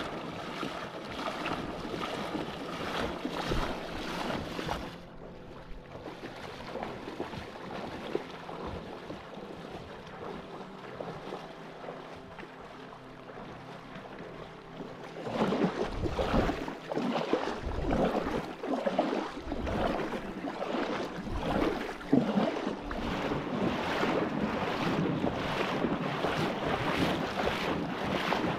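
Shallow creek water splashing and gurgling around a kayak as it is waded and pulled upstream, with some wind noise on the microphone. The sound drops abruptly about five seconds in and grows louder and busier again about fifteen seconds in.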